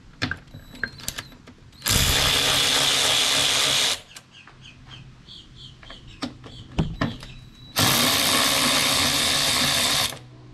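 Power drill-driver with a Torx T27 bit backing out the two screws of a motorcycle's license plate bracket. It makes two steady runs of about two seconds each, a few seconds apart, with small clicks and tool handling between them.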